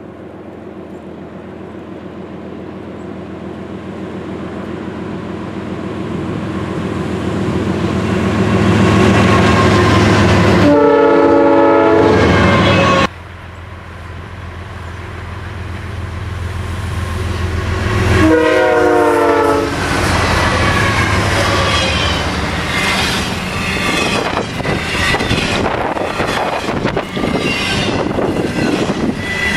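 GE diesel freight locomotives approach at track speed, their engine rumble growing louder. The air horn sounds for about two seconds and cuts off suddenly. It sounds again about five seconds later, dropping in pitch as the locomotives go by. The double-stack intermodal cars then rumble past with a rhythmic clicking of wheels over the rails.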